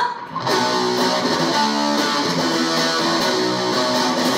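Electric guitar playing repeated strummed chords at a steady level, coming in about half a second in.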